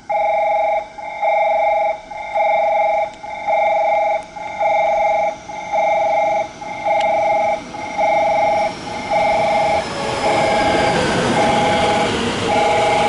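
Railway platform approach bell ringing: an electronic two-tone chime repeating about once a second, warning that a train is arriving. From about ten seconds in, an electric train pulls in alongside, its rumble and a falling whine rising under the bell as it brakes.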